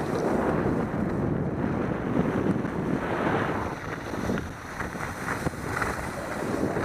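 Wind buffeting the microphone, with a rough rushing noise that swells and eases.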